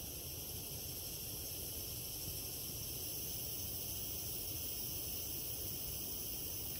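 Steady, high-pitched insect chorus, several layered tones holding without a break.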